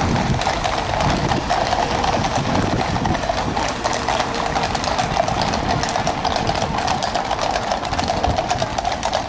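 Shod horses walking on a tarmac road, many overlapping hoofbeats clip-clopping steadily as a mounted column passes.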